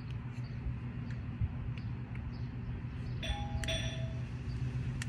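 Electronic video-doorbell chime, a two-note ding-dong (higher note, then lower) about three seconds in, over a steady low hum.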